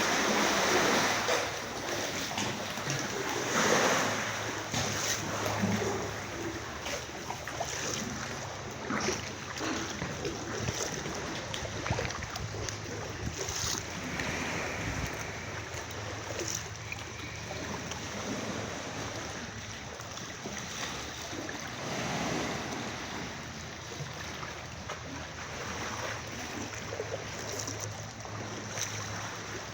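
Aegean sea water splashing and lapping around a kayak, with many small splashes throughout and louder surges near the start and about four seconds in.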